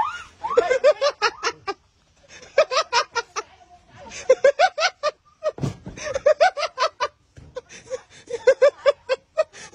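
A woman laughing hard in repeated fits of quick, high-pitched 'ha-ha' pulses, broken by short pauses. A low thump about halfway through.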